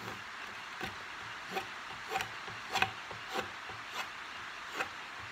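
Drawknife shaving wood off the back of a spoon bowl clamped in a spoon mule, roughing it out. Short, even strokes, about three every two seconds.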